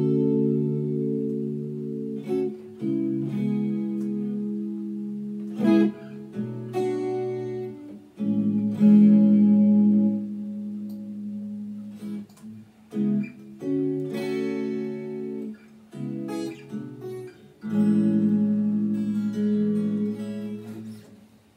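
Guitar strumming chords that ring out, stopping and starting every few seconds, played through a Bose S1 Pro portable PA speaker.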